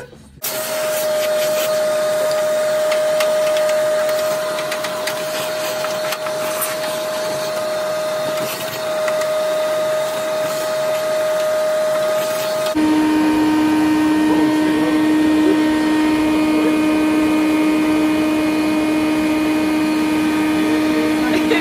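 Shop vacuum running with a steady motor whine as its hose sucks loose dirt out of a car's engine bay. A little past halfway, the whine shifts abruptly to a lower pitch.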